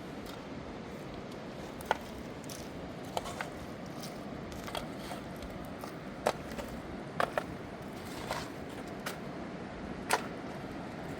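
A steady rushing background with about ten sharp knocks and clacks at irregular intervals, some in quick pairs, the loudest near the end.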